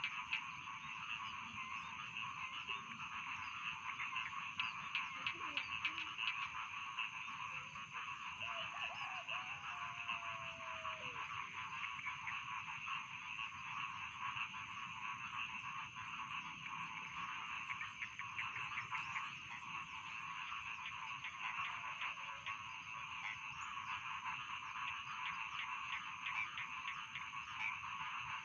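Dense chorus of rice-paddy frogs croaking, many calls overlapping into a continuous rapid pulsing, with a thin steady high-pitched tone above it.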